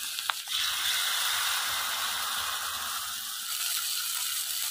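Hot oil sizzling and crackling steadily as a batter-coated noni leaf deep-fries in a wok; the hiss eases a little about three and a half seconds in.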